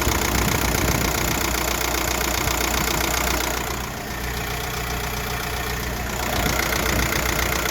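1.9 TDI ASZ four-cylinder diesel engine idling with a fast, even clatter of repeating ticks. This is the unexplained noise the owner hears through the driver's side wheel well. The sound turns duller and quieter for a couple of seconds in the middle.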